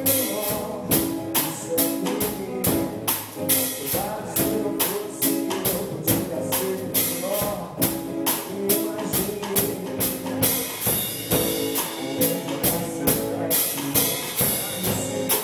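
Band music with a steady, quick percussion beat, a tambourine-like jingle over it, and a sung melody.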